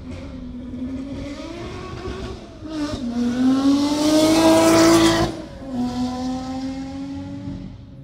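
Ferrari sports car engine accelerating hard. Its pitch dips about three seconds in, then climbs to its loudest point around five seconds in, where it drops abruptly to a lower, steadier note.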